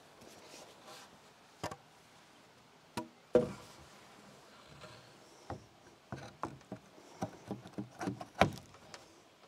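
A wooden roof-frame board knocking and thudding against the timber framing as it is lifted and set into place: a few separate hits, the loudest a hollow thud a few seconds in, then a quick irregular run of knocks near the end.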